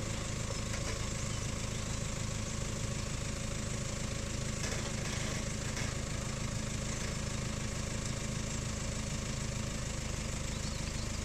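Toyota Land Cruiser Prado's engine running steadily at idle as the 4WD creeps slowly over creek-bed rocks, with no revving.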